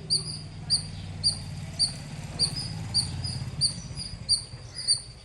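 Squirrel chirping loudly and repeatedly: about ten short, high, sharp chirps evenly spaced a little under two a second. A low steady hum runs underneath.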